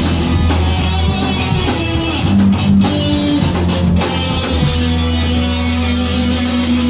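Thrash metal band playing live: distorted electric guitars over long held low bass notes.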